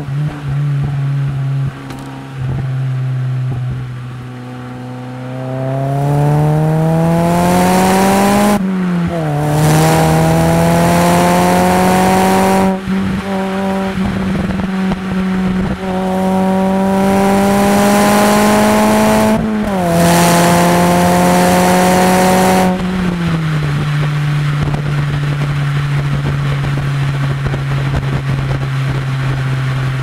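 Mitsubishi Colt CZT's 1.5-litre turbocharged four-cylinder heard through its exhaust: cruising steadily, then accelerating with the pitch climbing from about six seconds in, with brief upshift breaks around nine and twenty seconds in, before easing back to a steady lower note for the last several seconds.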